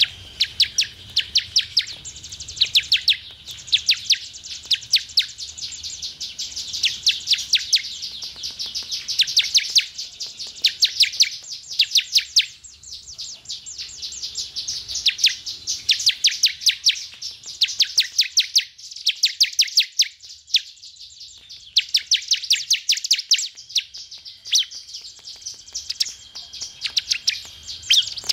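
Bar-winged prinia (ciblek) singing: fast runs of sharp, high chirps, each run lasting a second or two, repeated over and over with short pauses between.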